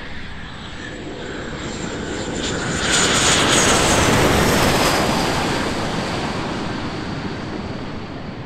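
SEPECAT Jaguar's twin Adour turbofan engines running as the jet rolls past on the runway: a jet rush with a high whine that grows loud about three seconds in, the whine dropping in pitch as it passes, then fading.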